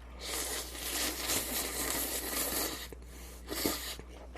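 A person slurping noodles: one long slurp lasting about two and a half seconds, then two short slurps near the end.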